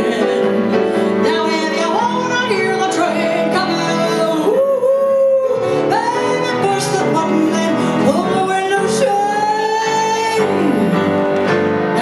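A woman singing a bluesy show tune into a microphone with piano accompaniment, her voice sliding between long held notes.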